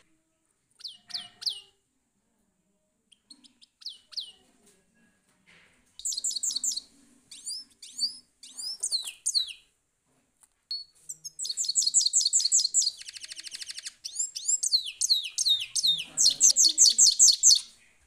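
European goldfinch singing: twittering phrases of fast repeated high notes that grow denser and louder, with a buzzy rattling trill in the middle.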